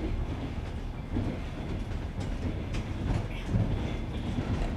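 Passenger train running over jointed rails, heard from inside the coach: a steady rumble of wheels with several knocks as the wheels cross rail joints.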